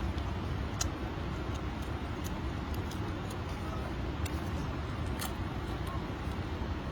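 Steady low rumble of background noise, with a few light clicks scattered through it.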